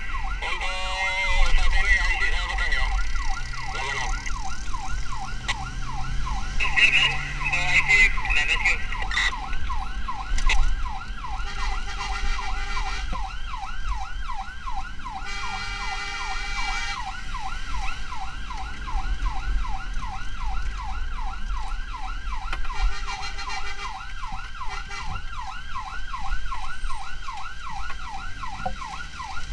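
Emergency vehicle siren sounding continuously in a fast yelp, its pitch sweeping up and down over and over. A second, higher siren tone joins in short spells.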